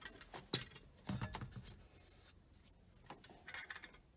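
Faint handling noises: a few light clicks and knocks in the first second and a half, then a brief rustle near the end.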